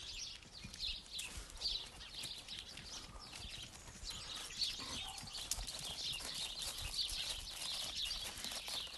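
Small birds chirping and twittering steadily in the background, with scattered footsteps and scuffs on gravel.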